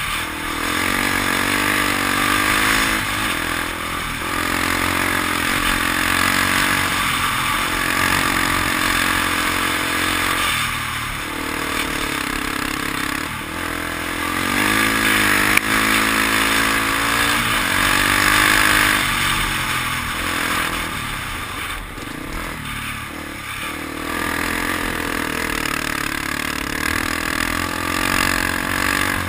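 Dirt bike engine running hard on a gravel track, its pitch rising and falling again and again as the rider revs it and shifts. A steady rush of wind and tyre noise sits under it.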